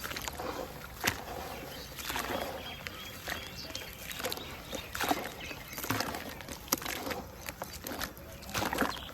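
Pieces of dry red dirt crumbling and being dipped into water: irregular crackles and soft wet swishes, with sharp snaps about a second in and near seven seconds in.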